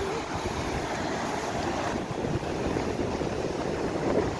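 Ocean surf breaking on the rocks below, mixed with wind rumbling on the microphone.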